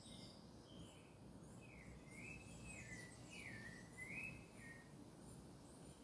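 Faint birdsong: a songbird sings a warbling phrase that swoops up and down for about three seconds in the middle, over short faint high chirps repeating throughout and a low background hum.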